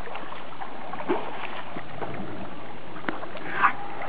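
River water rushing and sloshing around young Asian elephants swimming and splashing, with a few small splashes and one brief louder splash near the end.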